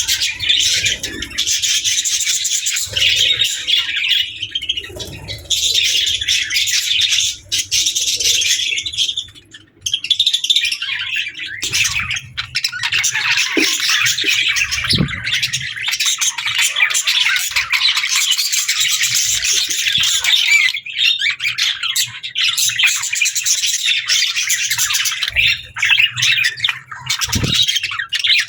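Budgerigars chirping and chattering, a dense, continuous stream of high warbled chirps with a brief pause about ten seconds in.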